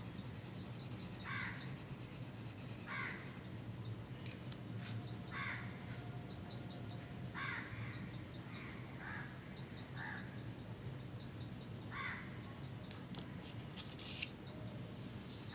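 A crow cawing repeatedly, about nine short caws at irregular intervals with a quick run of them near the middle, over a steady low hum.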